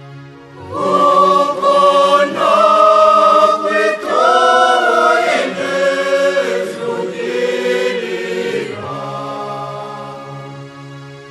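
Choir singing a hymn in long, held notes: a phrase enters about a second in and dies away near the end.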